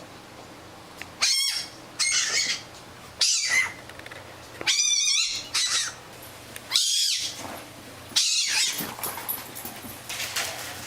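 Fennec fox giving a series of about seven loud, high-pitched calls with a wavering pitch, roughly a second apart, with softer sounds near the end.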